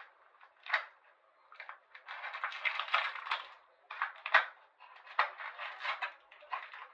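Stiff plastic toothbrush packaging crinkling and crackling in irregular bursts as gloved hands work at opening it, with a few sharp clicks.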